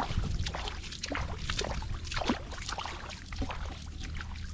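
Shallow water splashing and trickling in quick irregular bursts, over a steady low rumble.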